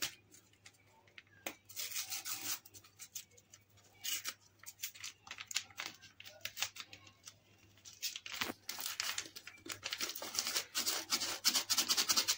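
Small vanilla sachet being torn open and handled, a scattered run of rustles and crackles that grows dense in the last few seconds as the packet is crinkled and shaken out.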